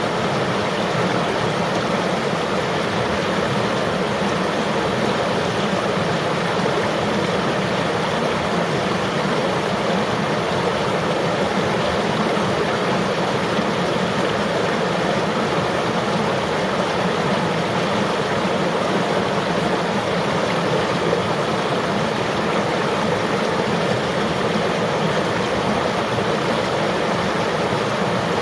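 River water flowing steadily, a continuous even rush of water.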